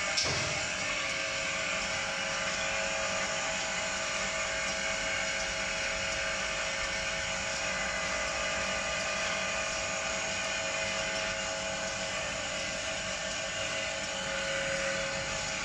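A napkin paper folding and two-colour printing machine running steadily: an even mechanical drone with several high, steady whining tones over a low hum.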